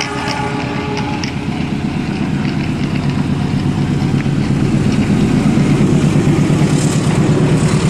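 Battery-powered toy high-speed train running on plastic track: a steady electric motor hum with wheel rattle, growing louder toward the end as it comes closer. A steady electronic tone, likely from the train's built-in sound unit, stops about a second in.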